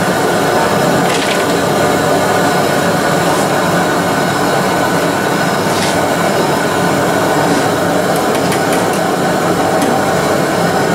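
Propane deep fryer running with a steady loud noise, with a few light metal clinks as the wire fry baskets are knocked and hung back in the fryer.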